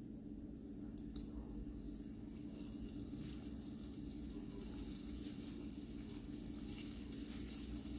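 Yeast-raised doughnuts frying in moderately hot oil in a pan: a faint, steady sizzle with light crackling that grows a little as more doughnuts go in, over a steady low hum.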